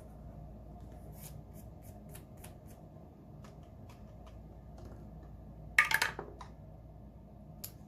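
Light clicks and handling of paper at a table, then a twelve-sided die rolled onto a hard surface, a quick clatter of several hits about six seconds in.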